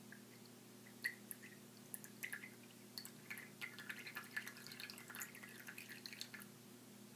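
Faint, irregular drips and small splashes of ammonium hydroxide solution falling from a syringe needle into copper sulfate solution in a glass. They start about a second in and die away shortly before the end.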